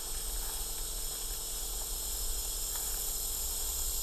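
Steady, high-pitched chorus of insects, with a low hum underneath.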